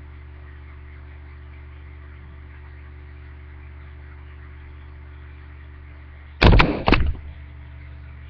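Steady low electrical hum. About six and a half seconds in, a short, loud burst of several sharp knocks or bumps cuts across it for about half a second.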